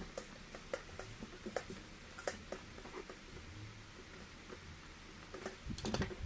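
Scattered light clicks and taps of a small knife sharpener and its packaging being handled and unwrapped, with a quick cluster of clicks near the end.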